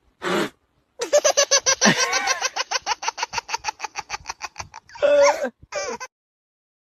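A person laughing hard in a long run of rapid "ha-ha-ha" bursts lasting about four seconds, ending with a couple of short vocal cries.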